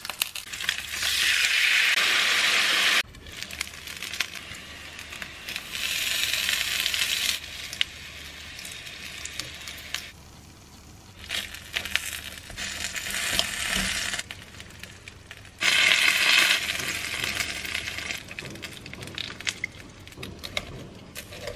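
Shrimp dumplings sizzling in a frying pan, heard in several separate stretches that start and stop abruptly, loudest about a second in and again around sixteen seconds. Quieter sizzling with light clicks and scrapes of utensils in between.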